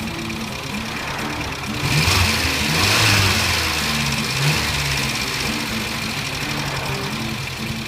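Talbot Horizon GLS's 1442 cc four-cylinder engine idling, revved up a few times between about two and five seconds in, then settling back to idle.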